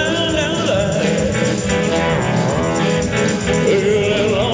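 Live rock and roll band playing, with a male lead vocal sung into a microphone over electric bass, drums and keyboards.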